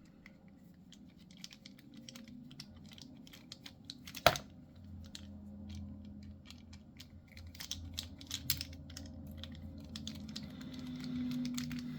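Small scattered clicks and taps of a precision screwdriver and Torx bit working the tiny body screws out of a pocket knife's handle, with one sharp click about four seconds in.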